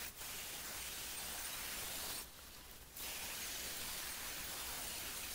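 Faint steady hiss of background noise, dropping out briefly a little after two seconds in.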